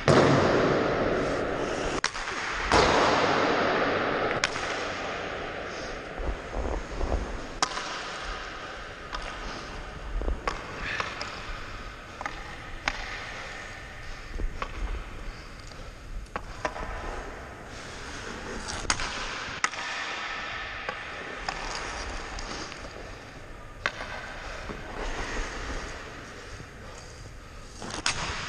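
Ice hockey skate blades gliding and scraping on the ice in long hissing swells, loudest in the first few seconds, with scattered sharp clacks of a stick striking pucks and pucks hitting the boards.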